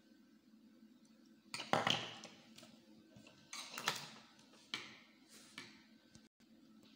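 Hands handling loose electrical wires and a small plastic switch on a tabletop: a few short rustling, scraping sounds, the loudest about a second and a half in and again near four seconds, over a low steady hum.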